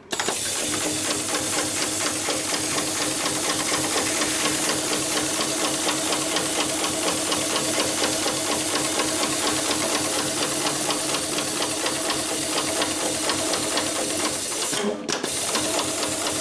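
Hightex industrial programmable pattern sewing machine stitching heavy leather at speed: a fast, even needle clatter over a steady motor hum. It breaks off for a moment about fifteen seconds in, then runs on.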